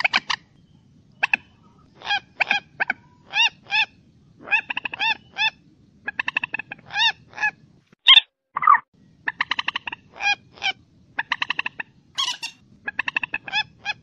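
Common moorhen calling: repeated short, pitched notes that rise and fall, some given singly and some run together in quick stuttering series, in clusters with brief pauses between them.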